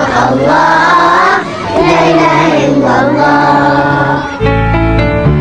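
A group of voices singing together like a choir, with held, wavering notes. About four seconds in it cuts to a song with piano accompaniment and a steady low bass note.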